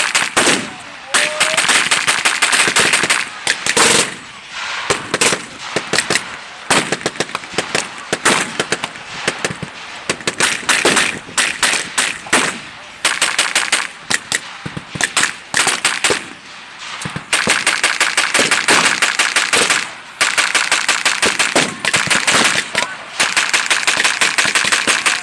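Machine guns and rifles firing blanks in a WWII reenactment battle: long bursts of rapid automatic fire mixed with single rifle shots, broken by a few short lulls.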